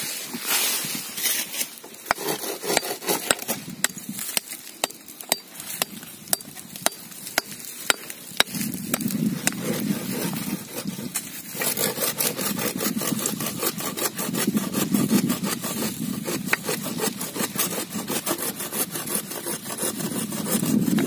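Hand tools, a small hoe and a metal blade, digging out a wild shrub's roots and stems among limestone rocks: a run of sharp strikes and scrapes of metal on wood and stone, a few a second, growing denser about halfway through.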